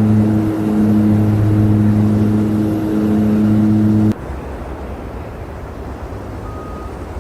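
A motor vehicle's engine running with a steady low hum, cutting off suddenly about four seconds in. Then a quieter low rumble, with a short high reversing-alarm beep near the end.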